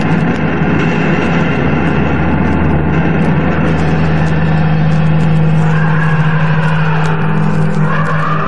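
Instrumental passage of a late-1980s rock recording: a low sustained note under a dense wash of distorted sound, with a higher line coming in about six seconds in.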